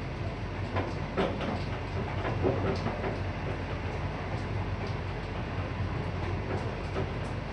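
Inside a moving Laos–China Railway passenger train: the steady rumble of the carriage running along the track, with a few light knocks.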